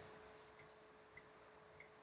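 Near silence: room tone with a faint steady hum and faint small ticks about every half second.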